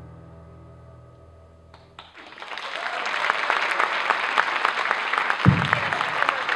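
Last sustained piano notes of the dance music fading out, then an audience breaks into applause about two seconds in, building quickly to steady clapping. One dull low thump sounds near the end.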